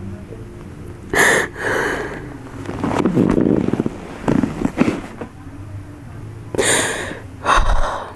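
A woman crying: a string of sharp sobbing breaths and sniffs, about six in all, over a faint steady low hum.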